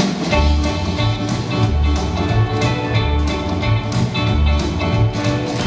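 Rock 'n' roll dance music with guitar and a steady beat, starting right at the beginning.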